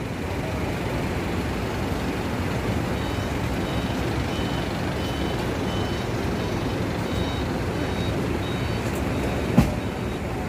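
Steady outdoor vehicle and traffic noise. From about three seconds in, a faint high-pitched beeping repeats at a regular pace, and there is a single sharp knock near the end.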